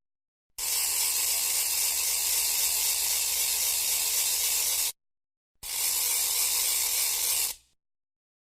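A steady hiss in two blasts, a long one of about four seconds and then a shorter one of about two seconds, each starting and stopping abruptly.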